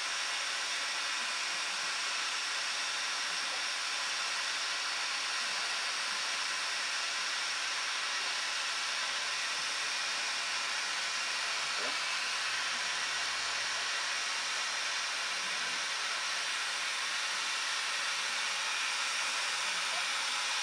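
Electric heat gun running steadily: a constant hiss of its fan and hot air.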